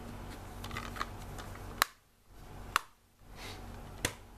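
Sharp plastic clicks from a Blu-ray case being handled, three of them about a second apart, over a faint steady hum.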